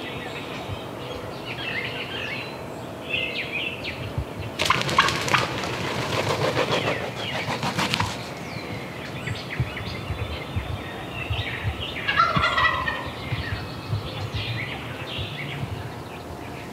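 Merriam's wild turkey gobbler gobbling, with a loud rattling gobble about five seconds in and a shorter one around twelve seconds. Small songbirds chirp faintly in between.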